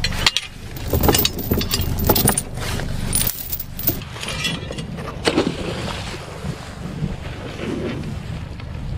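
Boat anchor chain clinking and rattling as the anchor is lowered over the side, a rapid run of metallic jingles and knocks in the first few seconds, then fewer, quieter knocks as the rope is paid out, with wind on the microphone.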